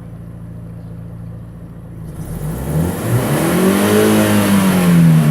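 Suzuki X-90's 1.6-litre four-cylinder engine idling steadily, then revved about two seconds in: the pitch rises, holds briefly, and drops back near the end.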